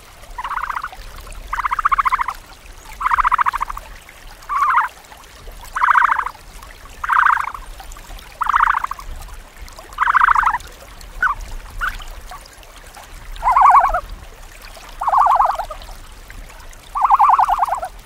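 An animal calling in a steady series of about a dozen short, buzzy calls, roughly one every second and a half, two of them clipped short partway through.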